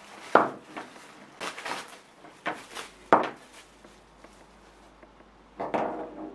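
Plastic wrapping rustling as it is pulled off an air fryer's power cord, with sharp clicks from the cord and plug being handled, the loudest near the start and about three seconds in, and more handling noise near the end.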